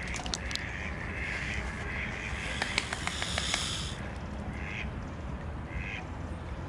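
Ducks quacking: a run of short, rasping calls in the first two seconds, then two single calls later on. A cluster of sharp clicks with a brief hiss about three seconds in.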